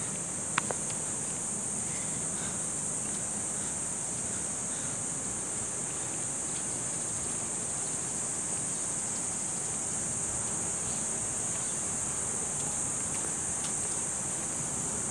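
A steady, high-pitched insect drone from the trees and shrubbery runs without a break over a faint background hiss. A single sharp click sounds about half a second in.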